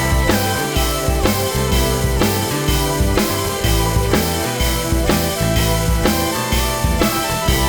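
Background music: a rock track with a drum kit keeping a steady beat under held bass and guitar notes.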